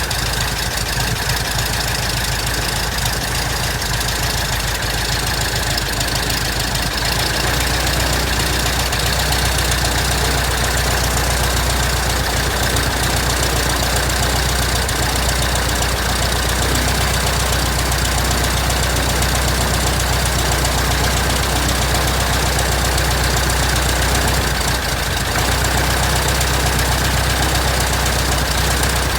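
Piston engine and propeller of a 1967 Citabria light aircraft running steadily on its first run after restoration, the low drone growing fuller about seven seconds in.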